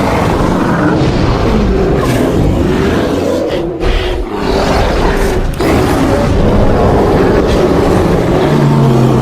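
Sound-effect creature roars and growls built from layered bear and lion recordings, one long, rough, wavering stream with two short breaks. Near the end a steady low hum comes in under it.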